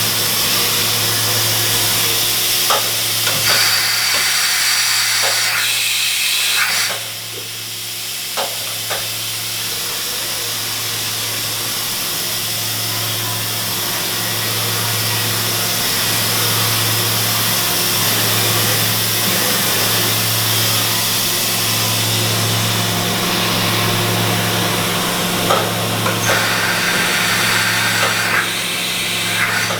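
Makino F5 CNC vertical machining center running: a steady low hum with a hiss over it and a few short clicks. The hiss drops off about seven seconds in.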